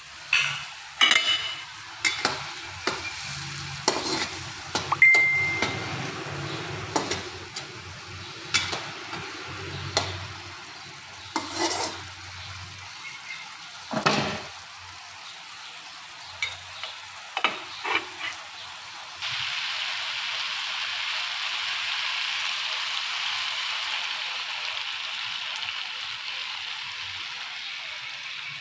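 A utensil scrapes and knocks against a wok while tomato sauce sizzles, with irregular sharp strikes through the first two-thirds. About two-thirds through, a steady, louder sizzle starts and holds.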